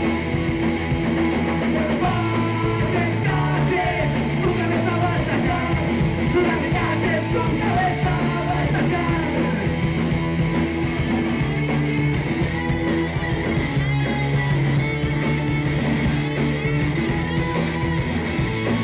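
Punk rock band playing live: electric guitars and drums.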